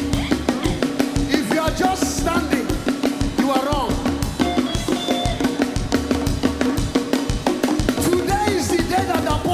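Live band playing upbeat dance music with a fast, driving drum-kit beat over a steady held note, with short melodic lines rising and falling over it now and then.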